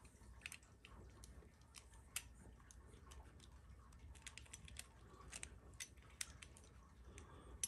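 Near silence with faint, scattered small clicks and ticks.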